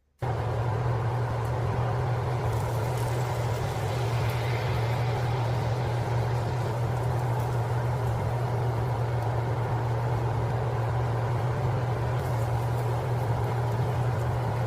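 A machine running steadily with a low hum and a whooshing noise, switched on abruptly at the start.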